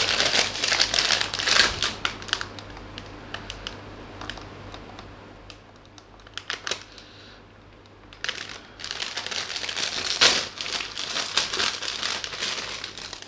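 Clear plastic bag around model-kit runners crinkling as it is handled, louder at first, quieter through the middle and louder again in the last few seconds.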